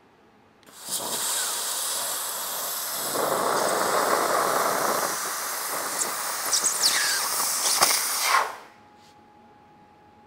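Handheld fiber laser cutter cutting stainless steel sheet with nitrogen assist gas: a loud, steady hiss starting about a second in, with sharp crackles from the sparks near the end, then cutting off abruptly.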